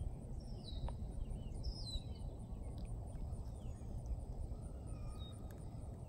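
Birds calling with short, downward-sliding chirps several times over a steady low outdoor rumble.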